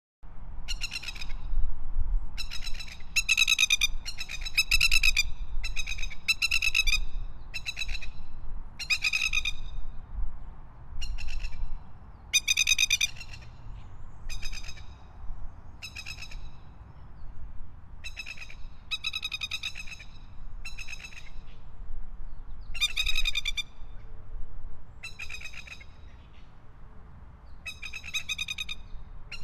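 Masked lapwings calling: repeated bursts of rapid, harsh chattering notes, one burst every one to two seconds, over a low rumble.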